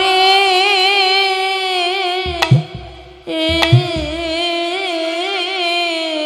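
Female kirtan singer holding two long sung notes with a wavering vibrato, with a short run of khol drum strokes about two seconds in, under the start of the second note.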